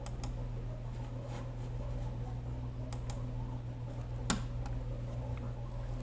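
A few isolated clicks of a computer mouse, the sharpest about four seconds in, over a steady low hum.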